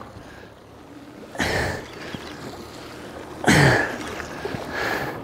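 Sea water splashing against the boat's hull in two loud washes, about a second and a half in and again about three and a half seconds in, with a smaller one near the end, over a low steady background.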